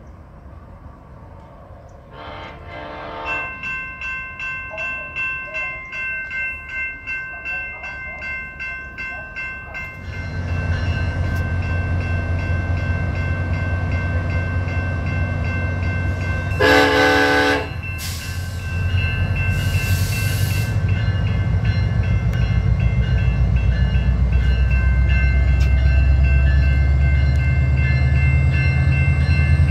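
SunRail commuter train with its MPI MP32PH-Q diesel locomotive pulling out. A bell rings in steady pulses throughout, the diesel engine throttles up about ten seconds in and grows louder, and the horn sounds one short blast a little past the middle.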